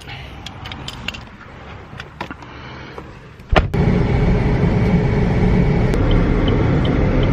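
A few light clicks and knocks, then about halfway through a car's running noise comes in suddenly: a steady rumble of engine and road noise as the car drives along.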